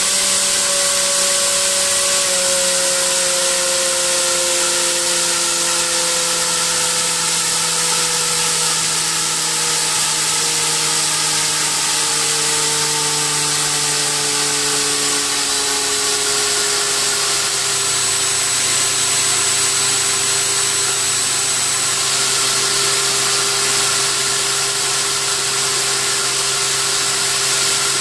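An 8x6 three-blade propeller on a 3536 brushless outrunner motor running on a thrust test bench: a motor whine with a rush of air. Its pitch drops in several steps as the throttle is turned down, then holds steady at a lower speed for the last third.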